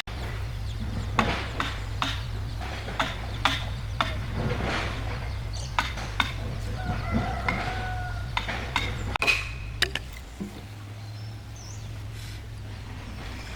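Irregular sharp knocks and taps, like tools striking timber, over a steady low hum. A rooster crows once about seven seconds in.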